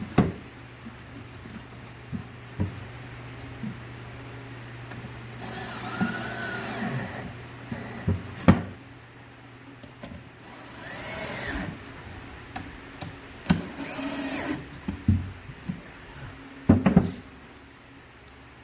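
Electric drill driving screws into solid-wood drawer parts in three short runs, its motor whine rising and falling in pitch each time. Sharp knocks of wood and tool being handled come between the runs.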